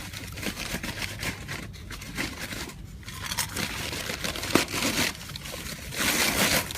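A plastic tub and the bag of cement powder inside it being handled: crinkling and rustling of the bag with small knocks and scrapes, and a louder stretch of rustling near the end.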